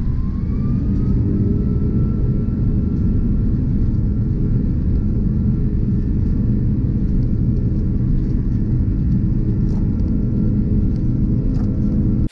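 Airbus A340-600's four Rolls-Royce Trent 500 engines at takeoff thrust on the takeoff roll, heard inside the cabin: a loud, steady low rumble, with an engine whine that rises in pitch over the first second or two and then holds.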